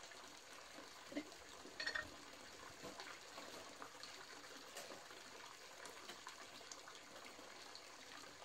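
Faint handling sounds as a charcoal fire is lit in a brick barbecue: a few soft clicks and rustles about a second and two seconds in, over a steady faint hiss.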